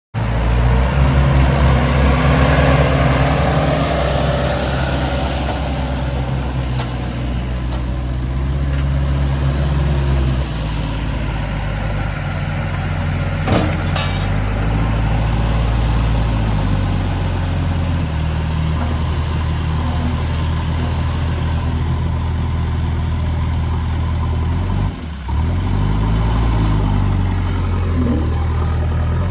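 Heavy diesel engine running steadily, working harder for the first ten seconds or so, then settling to a lower, even note. A single sharp click about 14 seconds in, and a brief break about 25 seconds in.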